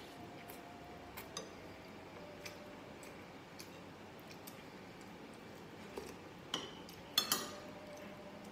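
A metal spoon clinking and scraping against a glass plate while scooping rice. There are scattered light taps, with a few louder clinks about six and a half to seven and a half seconds in.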